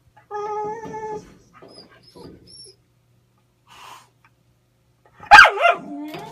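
Cocker spaniel whining to be given something it wants. A held, high whine lasts about a second near the start. Near the end comes a loud, sharp yelp that slides down in pitch into another whine.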